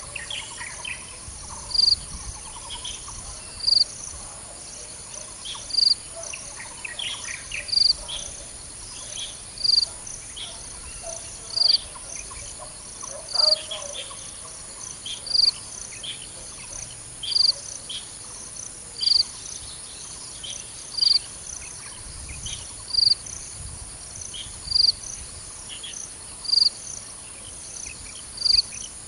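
Insect chorus: a steady high buzzing hiss, over which a short, loud, high chirp repeats evenly about every two seconds. Scattered bird chirps come and go, mostly in the first half.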